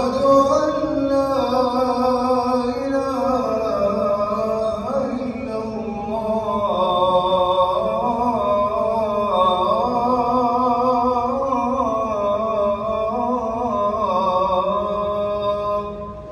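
A single man's voice chanting in long held notes with ornamented turns of pitch, in the melodic style of Islamic recitation. It stops abruptly at the end.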